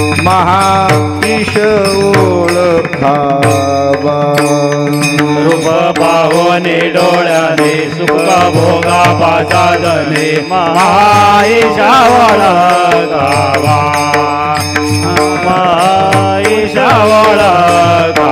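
Devotional kirtan music: a lead singer's wordless, gliding melodic line over a steady held drone. Small hand cymbals (taal) clash in a regular rhythm, with a drum beneath.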